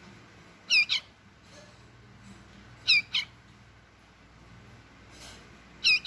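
Nestling bird calling: three double chirps about two seconds apart, each a pair of short, high, falling notes.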